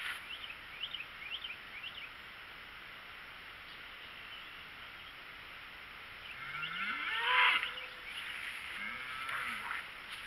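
A cow mooing twice: a long call rising in pitch about six seconds in, and a shorter call that rises and falls near the end. Birds chirp in the first two seconds.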